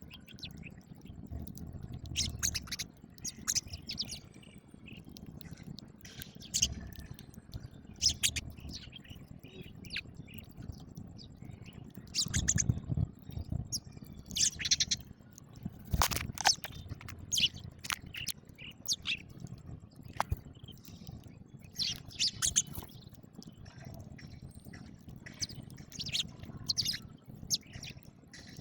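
House sparrows chirping, short chirps coming irregularly, with a sharp click about halfway through.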